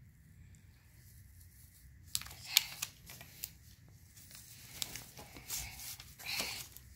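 Fingers picking and crumbling soaked, softened clay off a dig-kit mystery gem ball lying on newspaper: scratchy crumbling and paper rustling that starts about two seconds in, with a few sharp clicks.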